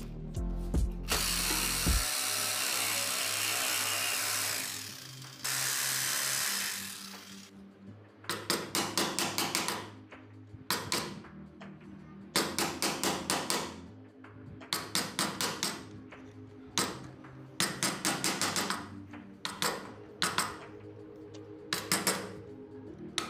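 Jigsaw running and cutting into a hardwood block for about the first seven seconds, then a chisel chopping and levering out the waste, heard as repeated quick runs of sharp taps.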